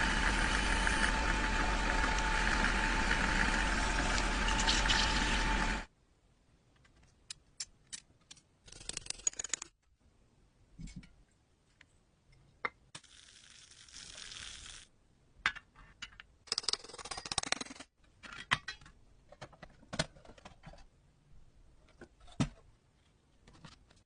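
A power tool runs steadily with a constant whine for about six seconds, then cuts off suddenly. Scattered clicks and knocks follow, with three short hissing bursts.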